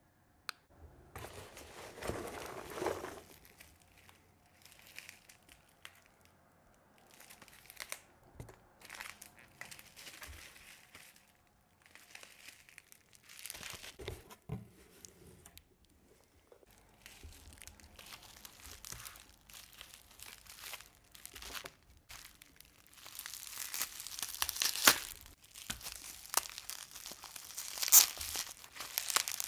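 Hands rustling through a cardboard shipping box of foam packing peanuts, then bubble wrap crinkling and crackling as it is cut and pulled open with a pocket knife. The crinkling becomes louder and denser in the last third, with sharp crackles.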